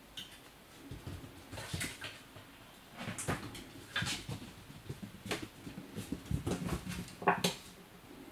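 Irregular soft taps and rustles as a kitten scrambles and paws at a dangling string toy on a windowsill, with one sharper knock about seven seconds in.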